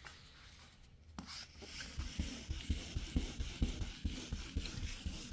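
Wet sanding by hand with 1500-grit sandpaper on a car's wet clear coat: quick back-and-forth rubbing strokes, about four a second, starting about a second in.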